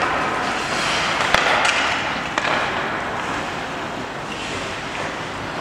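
Ice hockey rink during play: a steady hiss of skates on the ice, with a few sharp clacks of sticks and puck in the first half.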